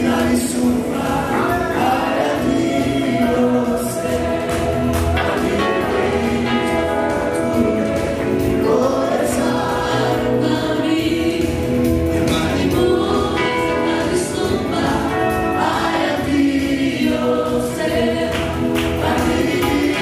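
Gospel music: a choir singing over a steady instrumental accompaniment with a bass line and a beat.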